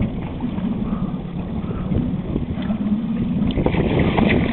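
A boat's motor running with a steady low hum, and wind buffeting the microphone.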